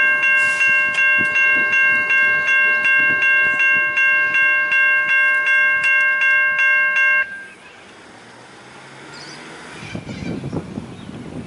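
Railway level crossing's electronic warning bell ringing fast, about three strokes a second, as a bright multi-tone clang, then cutting off abruptly about seven seconds in.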